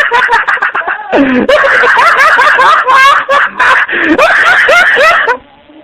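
A person laughing hard in fast, repeated ha's, pausing briefly twice and stopping suddenly near the end.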